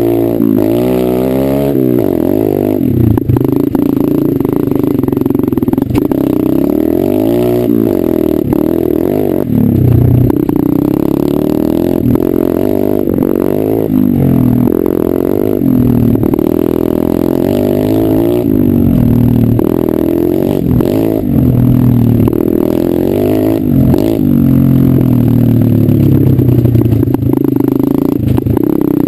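125 cc dirt bike engine revving up and down with the throttle on a rough, rocky trail, its pitch rising and falling every second or two. Rattles and knocks come from the bike bouncing over stones.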